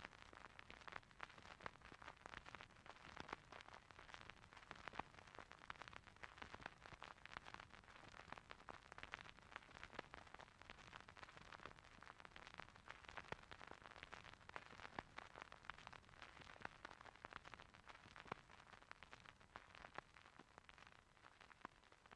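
Faint applause from an audience, a steady patter of many small claps.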